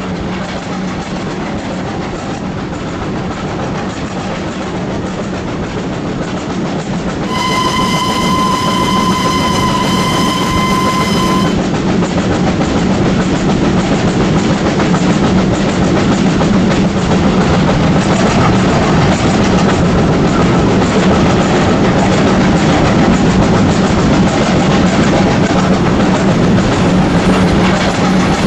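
HO-scale model trains running on the layout's track, a steady rolling noise of wheels and motors with a low hum that grows louder as the train nears. About a quarter of the way in, a steam whistle blows once, a single held tone lasting about four seconds.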